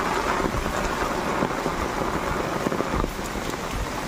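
Heavy rain falling steadily onto floodwater standing over a street.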